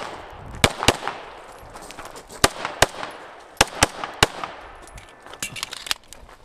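STI Trojan pistol firing in quick pairs, about seven sharp shots each followed by a short echo. A few fainter cracks come near the end.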